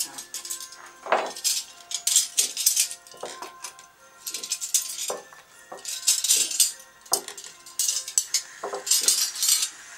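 Metal knives and forks clinking against each other as a handful of cutlery is sorted and set down piece by piece on hard table place mats, in several bursts of clatter with short metallic ringing.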